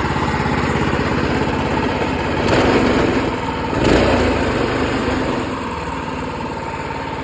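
Predator 212 single-cylinder four-stroke engine on a go-kart running, with two brief louder surges about halfway through as it is revved, then settling to a steady, quieter idle.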